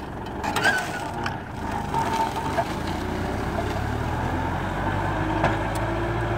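Diesel tractor engine running steadily under load while pulling a disc harrow through dry soil, its drone growing stronger about halfway through. A few sharp clicks sound in the first second or two.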